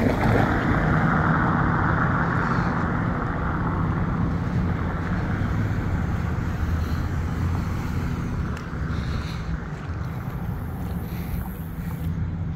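A car going by on the street, its tyre noise fading over the first few seconds, over a steady low rumble.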